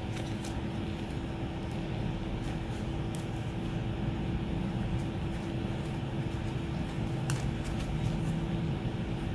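Steady mechanical hum with a constant low tone, broken by a few faint sharp clicks, about half a second in, around three seconds and around seven seconds.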